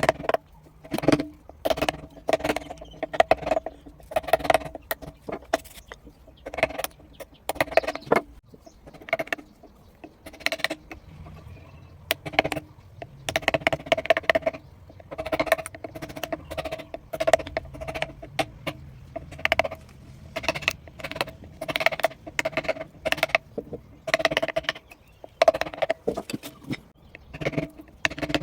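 Mallet striking a woodcarving chisel, repeated taps, often several in quick succession, each with the same short ringing note.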